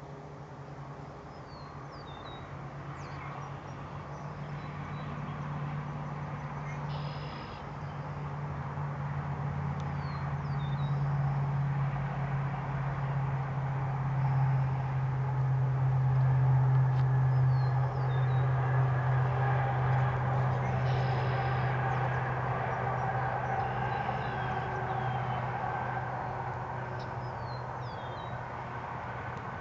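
A steady low engine drone that grows louder toward the middle and then slowly fades, with a few short, high bird chirps.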